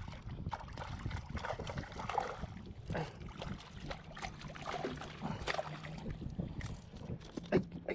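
Water sloshing around a kayak, with scattered small knocks and clicks against the hull and gear.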